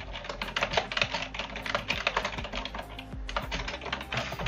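Fast typing on a computer keyboard: a quick, steady run of key clicks.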